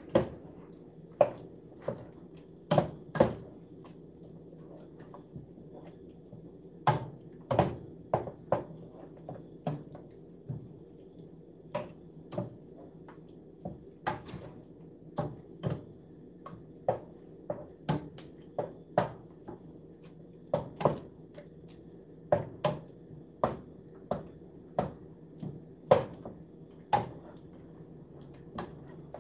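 Wooden spoon stirring a thick shredded-chicken and cream cheese dip in a stainless steel pot, knocking against the pot's sides about once or twice a second, in an uneven rhythm.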